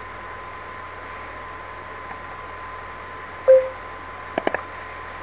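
Online poker client's short alert tone sounding once as the player's action buttons come up, followed a second later by three quick clicks. All of it sits over a steady hiss with a faint high tone underneath.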